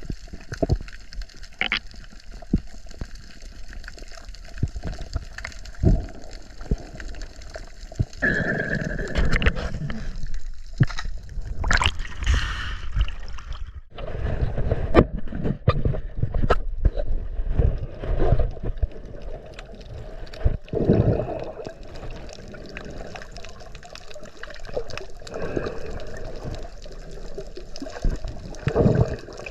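Water gurgling and sloshing around an underwater action camera, with scattered sharp clicks and knocks and several louder swells of water noise.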